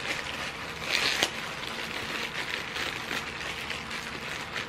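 Rustling and crinkling as baby clothes are handled and unpacked, with a louder crinkle about a second in.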